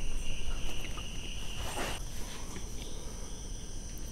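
Crickets trilling steadily in the background, with a short scrape about two seconds in.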